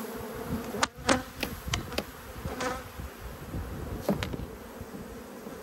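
Honey bees buzzing over an opened Langstroth brood box, the colony stirred up and defensive. A few sharp knocks and clicks come through, mostly in the first half and again about four seconds in.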